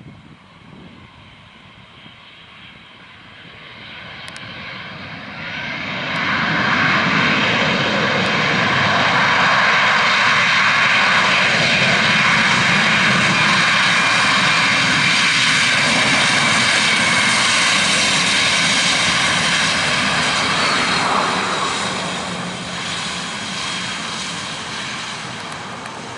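Airbus A320 jet engines running as the airliner moves past on the ground close by: a loud jet roar with a steady high whine, building over the first six seconds, holding for about fifteen seconds, then easing near the end.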